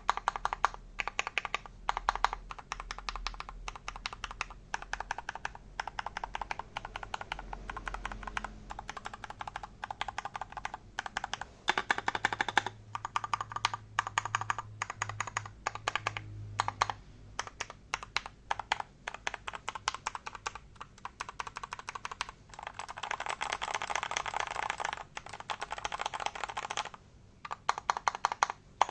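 Typing on an MK870 mechanical keyboard with Gateron Cap Milky Yellow switches and thin OEM-profile PBT shine-through keycaps: fast, continuous runs of keystrokes with short pauses. This is a sound test of the keycaps, which give a fairly soft, warm clack with some pop, not as deep as thick PBT caps.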